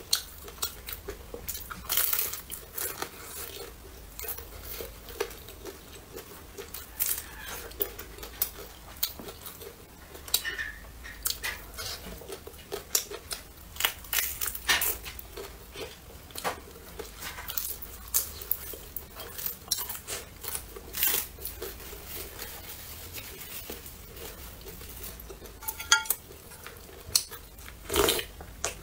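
Close-miked eating: crunchy bites and chewing of a fried vegetable pancake, heard as many short, sharp crunches and wet mouth clicks. A louder slurp of rice noodles comes near the end.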